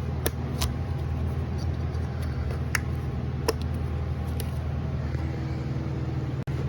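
A few sharp clicks from hands working on the engine bay, with ignition coil electrical connectors being pushed on and locked, over a steady low mechanical hum.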